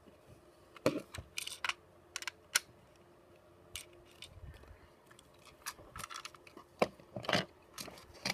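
Plastic toy train cars being handled on a table: scattered light clicks and knocks with brief rustling, the sharpest clicks about a second in, around two and a half seconds, and near seven seconds.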